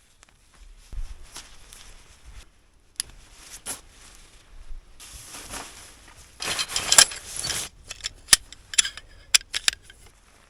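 Hammock strap being fastened: webbing rustling and scraping, with a run of sharp metallic clicks and jingles from the strap hardware near the end.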